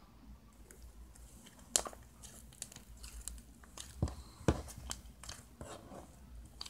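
Slime being handled: irregular sticky clicks, crackles and pops, with a few louder snaps about two seconds in and again around four seconds in.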